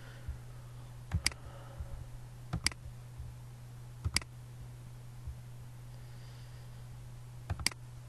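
Computer mouse clicking: four quick double clicks, a second or more apart, over a steady low hum.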